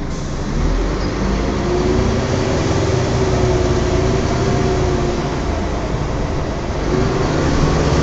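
Volvo Olympian double-decker bus's differential whining over the rumble of the engine and road, heard inside the upper deck: a thin tone that rises and falls with road speed, fading about five seconds in and climbing again near the end. This is the strange differential noise of this bus.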